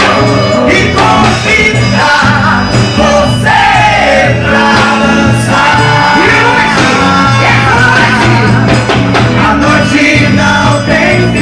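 Loud music with a singer, over a steady bass line.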